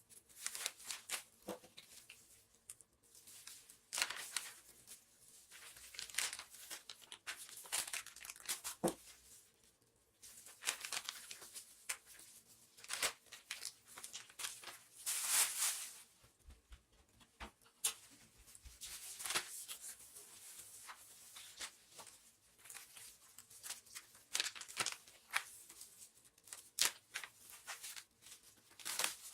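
Plastic food packaging being handled by hand: irregular crinkling and tearing noises, with a few sharp clicks, as meat is divided into small portions.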